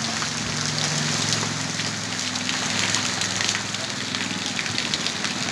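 Steady rain falling and pattering on surfaces, a dense patter of fine ticks. A low steady hum runs underneath and fades out about halfway through.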